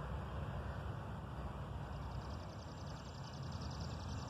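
Outdoor background noise: a steady hiss with an uneven low rumble, and from about halfway in a rapid, high-pitched pulsing trill.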